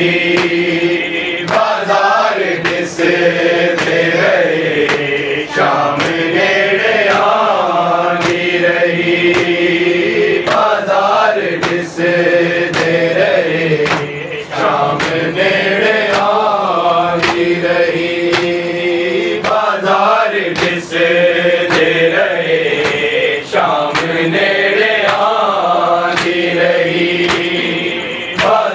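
A group of men chanting a noha, a Shia lament, in unison, with a repeated beat of hand slaps from chest-beating (matam).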